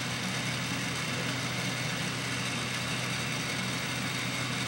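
Desktop balloon vaporizer's fan running steadily, blowing hot air through the herb chamber to fill the plastic bag with vapour: an even whir with a low hum beneath it.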